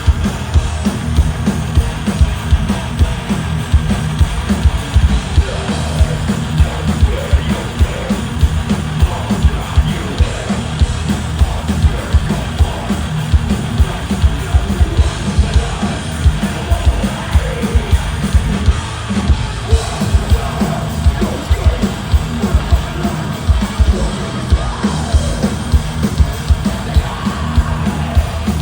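Live thrash metal band playing: distorted guitars and bass over fast, pounding drums, with shouted vocals.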